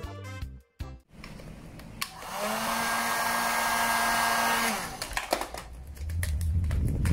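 Electric heat gun running over vinyl wrap film: a steady blowing hiss with a low hum, switched on about two seconds in and off a little before five seconds.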